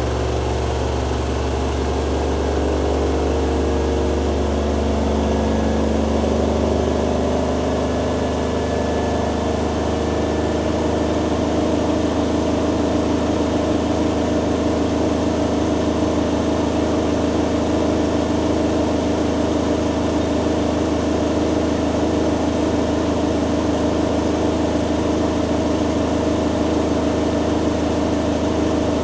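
Hoover Dynamic Next DXA610IW3 front-loading washing machine in its spin cycle: the drum and motor running with a steady hum. The pitch of the hum shifts during the first several seconds, then settles and holds steady.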